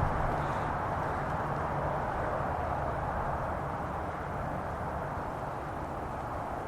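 Steady outdoor background noise: an even hiss with a faint low hum beneath it, with no distinct events.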